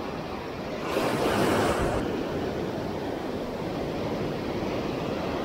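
Ocean surf breaking and washing in around the shallows, a steady rushing wash. About a second in, a wave breaks louder and hisses up, then the wash settles back.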